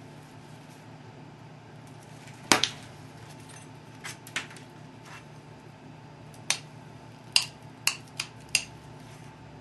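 Pressure flaking a chert Dalton point: about eight sharp clicks at irregular intervals as a copper-tipped flaker presses flakes off the stone's edge. The loudest is a double click about two and a half seconds in, and a quick run of clicks comes near the end.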